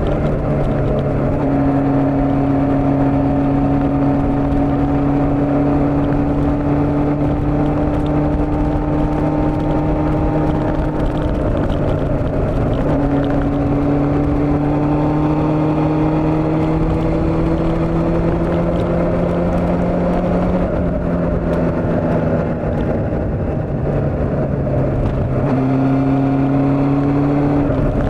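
Old Honda CB400 motorcycle engine running while riding at cruising pace, its pitch slowly rising and falling with the throttle, under wind noise. Engine speed eases off briefly a little past the middle, then picks up again near the end.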